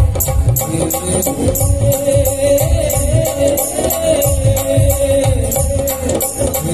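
Live Indian light-music ensemble playing a devotional song: tabla and keyboards with a fast, even rattling percussion beat and a sustained melody line.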